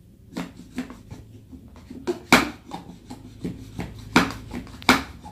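Hard plastic clacks and knocks of a toy plastic jar and its pusher stick as mango pieces are pressed down inside, with three sharper knocks about two, four and five seconds in.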